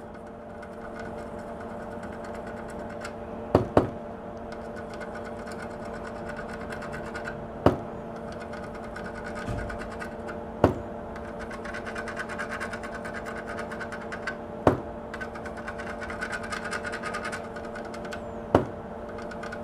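Steady hum of a small fan motor, with the faint scratchy rub of a soldering iron tip being drawn across fluxed circuit-board pads to level the solder. A sharp click sounds every few seconds, twice close together near the start.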